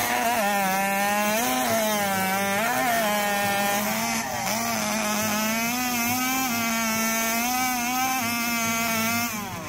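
Two-stroke chainsaw at full throttle cutting through a log, its high steady pitch sagging and recovering a few times as it loads in the wood, then stopping shortly before the end.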